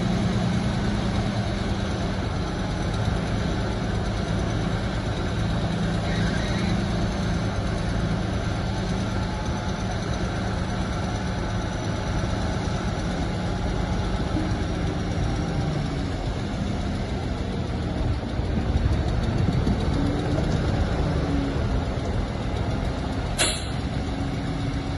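Heavy earthmoving machine's diesel engine running steadily, its pitch shifting a little over halfway through, with one sharp click near the end.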